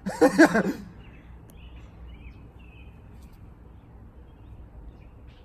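A person's loud shout, about a second long, at the start, then faint bird chirps in the outdoor background.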